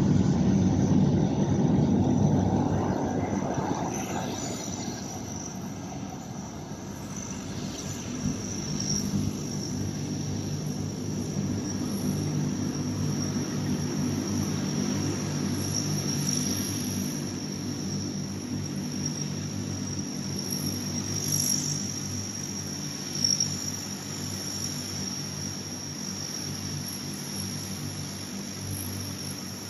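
Lockheed L-188 Electra airtanker's four turboprop engines running as it taxis, a steady propeller drone. It is loudest in the first few seconds, then eases and holds steady.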